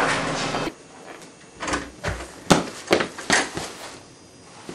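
A house door's knob and latch working as the door is opened: a handful of sharp clicks and knocks, the loudest about two and a half seconds in. Before it, a noisy stretch cuts off abruptly under a second in.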